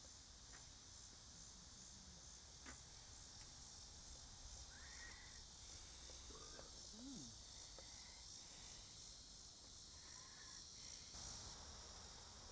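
Near silence outdoors: a faint, steady, high-pitched insect chorus, with a few faint short chirps and a single light click about three seconds in.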